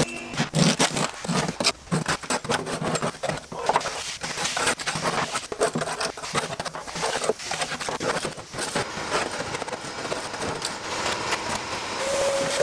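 A hand scraper scratching old carpet glue and residue off a Ferrari 308 GTS's floor pan, in quick, irregular strokes.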